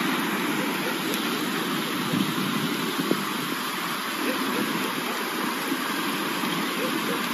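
Swollen, muddy river rushing over stones and small rapids: a steady noise of fast-flowing water.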